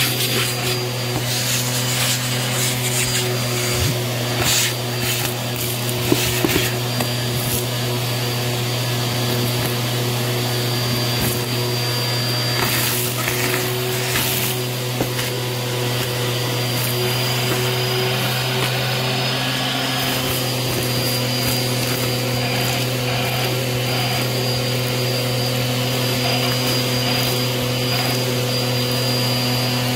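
Bissell vacuum cleaner running with its crevice tool: a steady motor hum under a thin high whine. Grit and debris crackle and rattle up the hose, thickest through the first half and sparser later.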